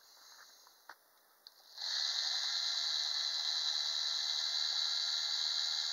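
Small DC can motor powered by a 9-volt battery, spinning a stick arm on its shaft. A steady high whir starts about two seconds in and holds level.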